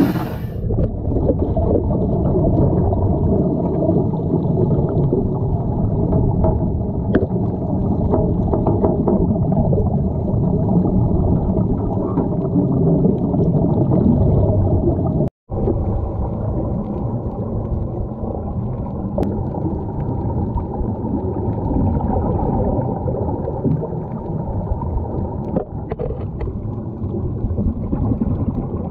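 Muffled underwater sound: a steady, dense rumble and bubbling of air streaming from a hose-fed sea-walker diving helmet, with faint ticks. It cuts out for an instant about halfway.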